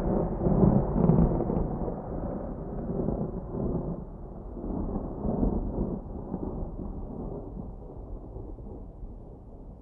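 Rolling thunder: a long low rumble that swells several times and slowly fades away.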